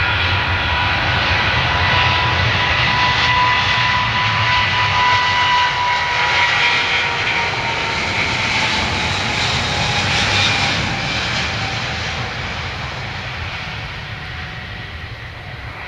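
Boeing 777's twin turbofan engines at takeoff thrust during the takeoff roll: a loud jet roar with a steady whine that slowly drops in pitch as the airliner passes, fading over the last few seconds.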